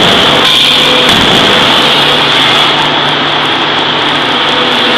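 Loud, steady machine noise of a 5-ton forging hammer working hot steel, with a strong high hiss over a low hum and a few faint knocks in the first second.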